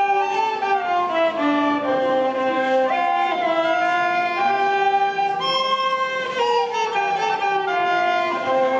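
Hungarian folk tune played together on violin and two end-blown flutes: a continuous melody moving in short held notes.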